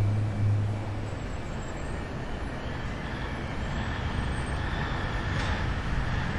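A choir's voices imitating a car on the road: a low hummed engine note that dies away about a second in, leaving a steady vocal hiss like tyre and wind noise.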